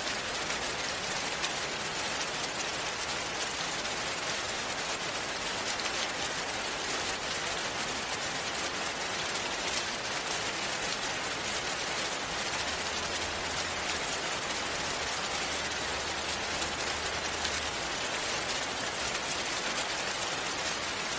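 Steady rain-like water sound: an even hiss with no rhythm and no distinct drops.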